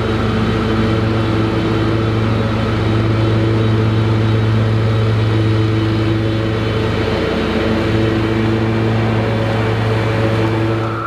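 Toro 6000 Series zero-turn mower's engine running steadily at working speed as the mower drives across the field.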